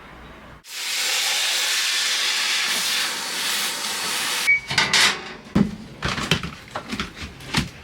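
A steady, loud hiss that starts suddenly and stops after about four seconds, followed by a run of irregular knocks and clatter.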